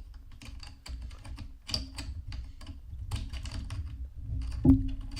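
A metal LCT AK74 magwell insert being worked into an airsoft AK's magazine well: a run of small clicks and taps of metal parts, with a louder clank near the end.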